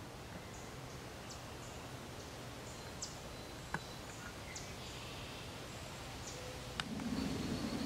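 Outdoor yard ambience: a steady background hiss with scattered short, high bird chirps and a few faint clicks. A louder low rumble comes in near the end.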